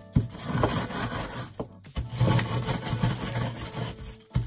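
Wooden rolling pin rolled back and forth over digestive biscuits in a plastic bag on a wooden table, crushing them to crumbs: a rubbing, scraping crunch with a few sharp knocks as the pin is pressed down.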